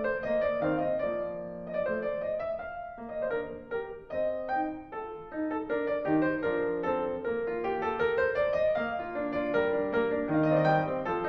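Background piano music: a melody of notes in quick succession over lower notes.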